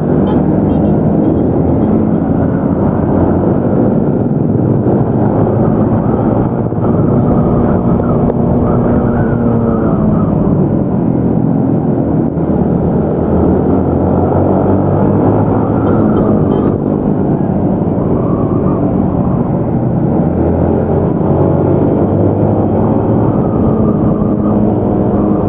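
Yamaha Y15ZR motorcycle's 150 cc single-cylinder engine running on the road, its pitch rising and falling with the throttle, under a steady rush of riding noise.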